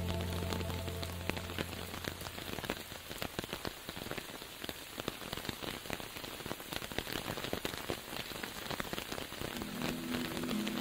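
Rain pattering, an even hiss full of tiny drop clicks, as held music notes fade away over the first couple of seconds; soft held music tones come in again near the end.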